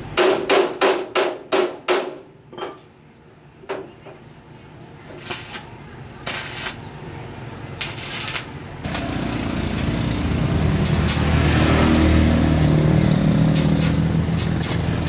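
About seven quick hammer blows on metal in the first two seconds, then a few scattered knocks. About nine seconds in, an engine comes on and runs steadily.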